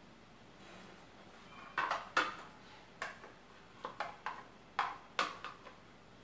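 A spoon clinking against a bowl about a dozen times, in short, irregular taps, while spice powder is added to beaten egg.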